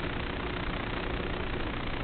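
FPV racing quadcopter in flight: a steady, noisy hum of its motors mixed with wind rush, the pitch dipping slightly about a second and a half in.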